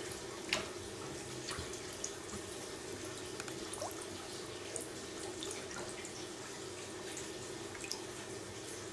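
Water trickling steadily in a catfish tank, with scattered small drips and splashes.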